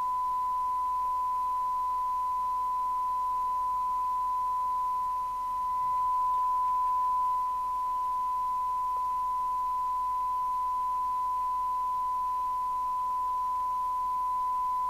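Steady 1 kHz test tone from the CB radio's demodulated receive audio over faint hiss, the standard SINAD test signal used while peaking the receiver's alignment. Its level dips briefly about five seconds in, then is slightly louder for a couple of seconds.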